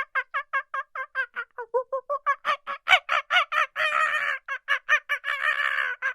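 Domestic fowl calling in a rapid series of short, nasal, pitched calls, about five a second, with a couple of longer, overlapping stretches near the end.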